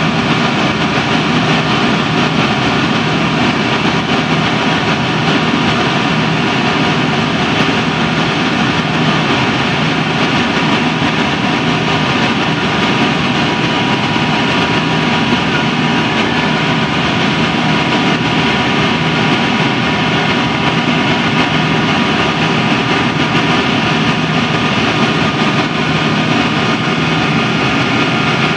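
Cabin noise inside a Yak-42D airliner climbing after takeoff: the steady roar of its three tail-mounted Lotarev D-36 turbofans, with several steady whining tones on top.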